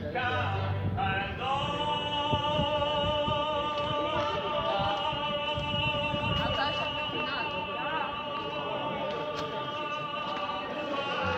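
Operatic singing with music: a classical singer holds one long note with vibrato from about a second and a half in until just before the end.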